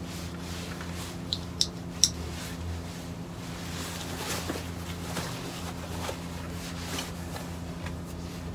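Spring thread snips clicking shut three times in quick succession, about a second and a half in, as threads are trimmed on a neoprene wetsuit, with soft handling of the neoprene afterwards. A steady low hum runs underneath.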